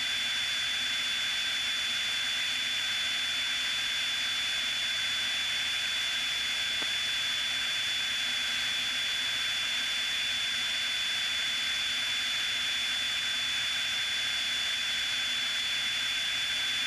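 Steady in-flight noise of a Piper Cherokee single-engine plane in cruise: an even hiss with a constant high-pitched whine running through it, unchanging throughout.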